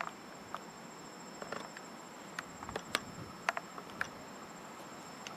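Insects trilling steadily at a high pitch, with scattered short sharp clicks and chirps on top.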